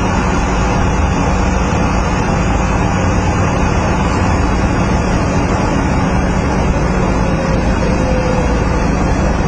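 Steady road traffic noise with a constant low hum, loud and unbroken.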